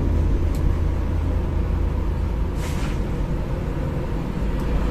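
Steady low rumble, with a short hiss about two and a half seconds in.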